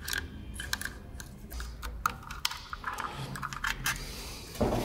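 Irregular light clicks and taps of hard plastic and metal parts on a dismantled Easytronic gearbox actuator as it is handled. Near the end a rising swoosh leads into music.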